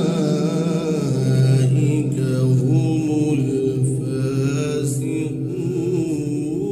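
A man's solo melodic Quran recitation in Arabic, in a drawn-out chanted style, holding long notes with slow ornamented turns.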